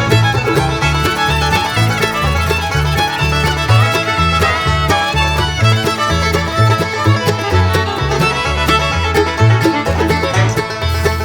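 Bluegrass music with fiddle and banjo over a walking bass line.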